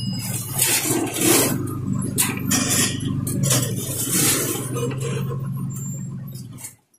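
Diesel engine of an MSRTC bus running with a steady low hum, heard inside the cabin over repeated body and window rattles. The sound cuts off abruptly near the end.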